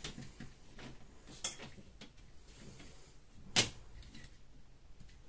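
Scattered light clicks and knocks from handling plastic reverse-osmosis tubing around the booster pump and copper pipes, the loudest a single sharp knock a little past halfway.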